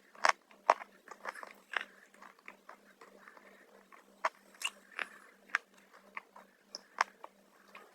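Crunchy black chips being bitten and chewed: irregular sharp crunches, the loudest about a quarter second in and about seven seconds in.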